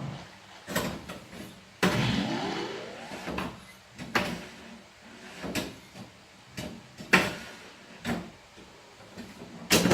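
Williams White Water pinball machine in play: a series of sharp clacks about once a second, with a rising electronic sweep about two seconds in. The owner says the machine has a sound fault that makes it sound like an early-80s pinball.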